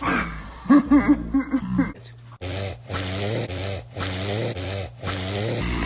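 A man's loud sneezing: a quick run of sharp vocal bursts about a second in. It is followed by a long, drawn-out pitched vocal sound over a steady low hum, broken by several abrupt cuts.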